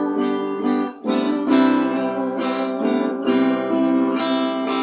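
Acoustic guitar strumming chords in a steady rhythm, with a brief break just before a second in: an instrumental passage between the sung lines of a psalm.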